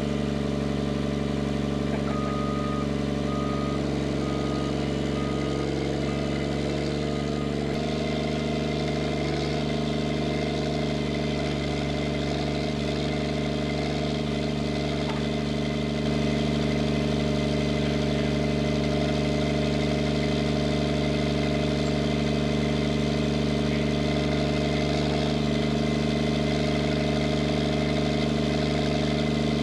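Snowcat's diesel engine running steadily, with a slight change in its note about 8 seconds in and a little louder from about 16 seconds in.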